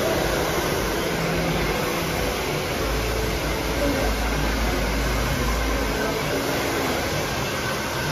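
Handheld hair dryer running steadily, blowing air onto hair.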